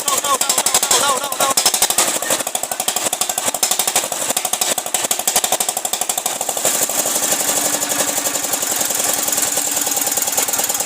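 Small diesel engine of a power pump running after a fresh start, a fast, even knocking beat that settles and grows smoother about two-thirds of the way through.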